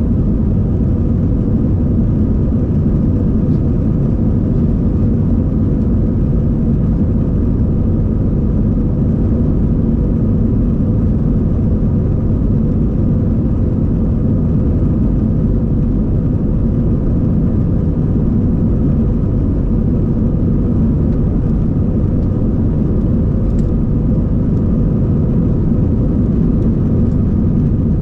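Airbus A320 cabin noise: the jet engines running with a steady low drone under a constant airflow hiss, with faint steady tones over it.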